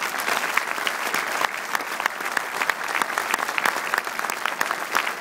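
Audience applauding: dense, steady hand-clapping from many people.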